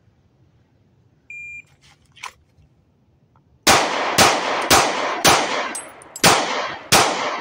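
A shot timer beeps once. About two seconds later a .40 S&W pistol fires six shots: four about half a second apart, a pause of about a second, then two more. This is a split bill drill, four to the body and two to the head, drawn from concealment.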